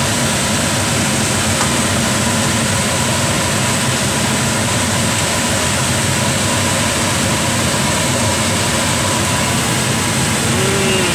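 Cut red potatoes frying in hot oil in a skillet, a loud, steady sizzling hiss.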